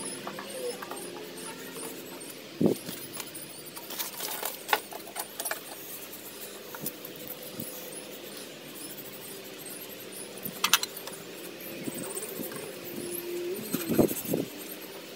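Scattered clicks and knocks of steel tools handled at a small metal lathe, from vernier calipers and the tool post, over a faint steady hum.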